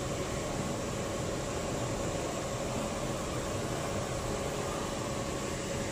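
Steady workshop background noise: an even rush with a faint, unchanging hum.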